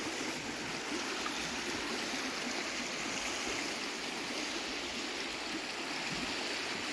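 Steady rushing of running water, like a flowing stream, with no distinct events.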